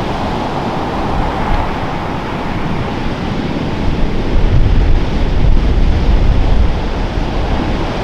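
Ocean surf and wind, with gusts rumbling on the microphone that grow stronger about four seconds in.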